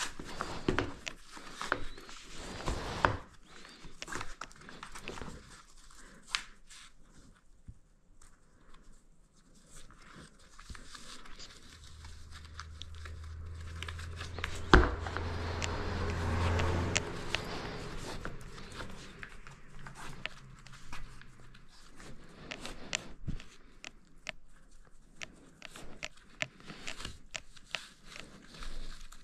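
Handling noises: scattered clicks, knocks and rustling, with a low steady hum that builds for several seconds around the middle, broken by one sharp knock.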